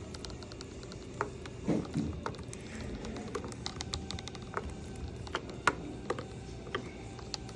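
Screwdriver prying at a plastic door handle cover on a truck door: scattered sharp clicks and small scrapes of the tool working against the plastic and its latching lip.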